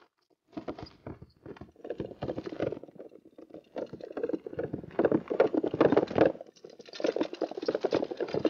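Horses galloping on dirt, a quick, uneven run of hoofbeats that starts about half a second in and gets louder from about five seconds in.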